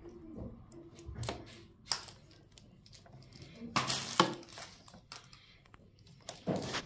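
Power cord being wrapped by hand around the cord hooks on the plastic body of a carpet and upholstery washer: scattered light plastic clicks and knocks with the cable rustling, loudest about four seconds in and again near the end.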